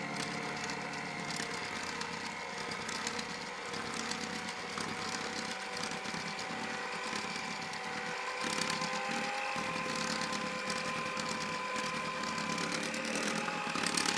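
Electric hand mixer running steadily, its motor whine holding a few even tones that waver slightly as the beaters work.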